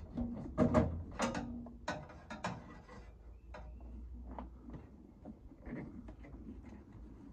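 Sharp metal clinks and knocks from a hand tool working a stuck mounting bolt out of an RV step bracket, several close together in the first couple of seconds, then lighter, scattered ticks. The bolts have never been taken out, so they have to be tapped and pried loose.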